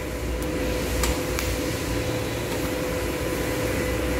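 DC TIG welding arc, set at 100 A and struck by lift-arc (the tungsten touched to the plate and lifted, no high-frequency start), burning with a steady hiss over the hum of the inverter welder. A few faint clicks in the first second and a half.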